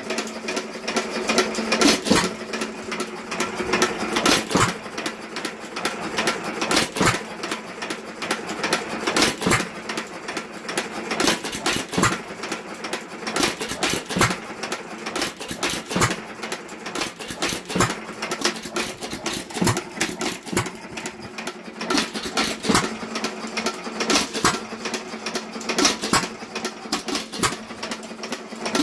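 Associated 1.75 hp air-cooled hit-and-miss engine running, a fast, steady mechanical clatter with a stronger knock every two seconds or so as it fires and coasts between.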